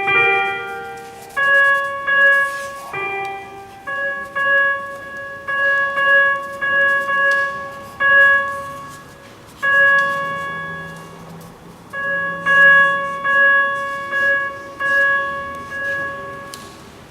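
Synthesizer playing bell-like notes, mostly one pitch struck again and again about once a second, each note ringing and fading before the next, with a few changes of pitch near the start.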